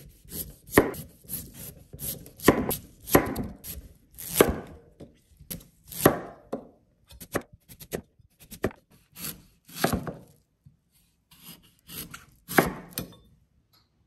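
Large chef's knife slicing crisp Korean radish on a wooden cutting board. There is an irregular series of about fifteen crunchy cuts, each ending in a knock of the blade on the board.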